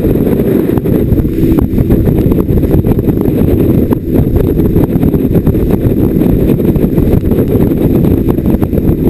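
Loud, steady wind rumble on the microphone of a camera on a fishing boat running at speed over open water, with the boat's running noise underneath and spray crackling against the camera.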